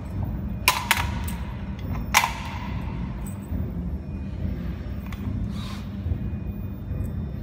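A few sharp metallic clicks and knocks from handling cable connectors and a screwdriver, about one and two seconds in, over a steady low machine hum.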